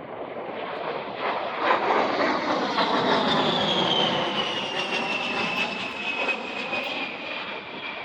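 A-10 Thunderbolt II's twin TF34 turbofan engines in a low flyby. The noise swells over the first two seconds, then the engines' high whine falls steadily in pitch as the jet passes and draws away.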